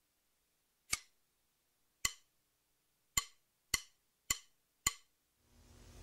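Six sharp percussive clicks in a count-in rhythm, two slow and then four quick, each ringing briefly. A low hum swells in near the end as the music is about to start.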